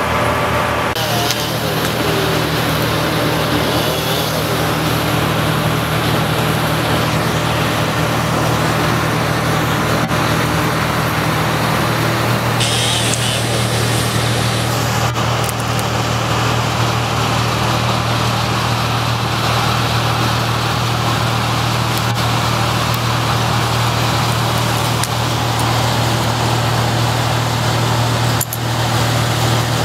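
A large engine running steadily at one speed, an even deep hum with a noisy wash over it.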